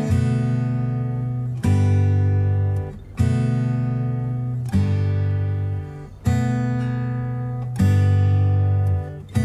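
Background music: acoustic guitar chords, a new chord struck about every second and a half and left to ring out and fade.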